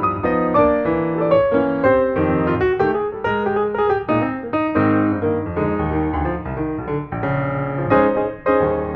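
Background piano music: a melody of struck notes over chords at a moderate pace.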